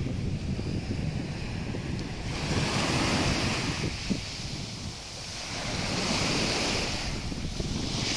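Small sea waves breaking and washing up a pebble beach, the hiss of the wash surging louder twice, with wind buffeting the microphone.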